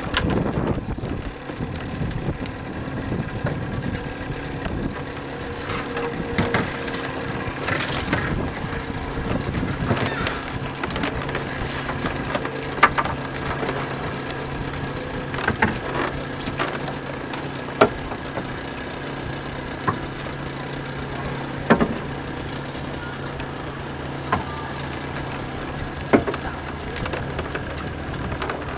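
Wooden oars knocking against a rowing boat, single sharp knocks every few seconds, over the steady running of a motorboat engine.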